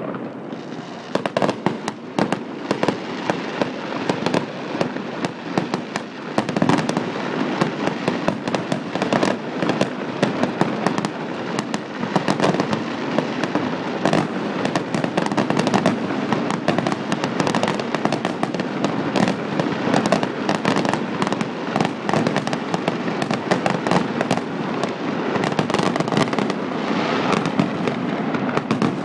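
Aerial fireworks display going off in a dense, continuous barrage of bangs and crackling shell bursts, thickening about a second in.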